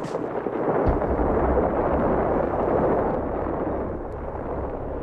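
Deep, rolling rumble of an avalanche released by blasting. A low thud comes about a second in, and the rumble swells and then runs on steadily.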